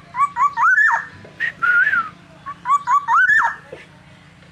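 Black-naped oriole (kepodang) singing fluty whistles: two runs of quick short notes that end in an upward slur, with a drawn-out arching whistle between them.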